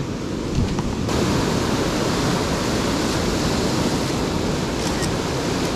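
Ocean surf breaking and washing over shoreline rocks: a loud, steady rush of noise that fills out about a second in.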